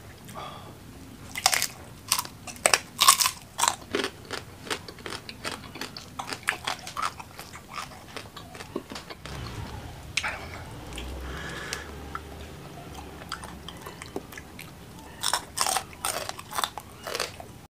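Close-up crunching and chewing of fried mackerel (ikan kembung) in chili sambal: hard, crisp bites crackle many times in quick runs, thin out into quieter chewing in the middle, and pick up again near the end.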